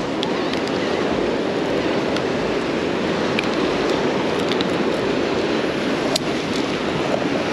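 Rough surf washing steadily against the granite rocks of a jetty, with wind on the microphone and a few light clicks.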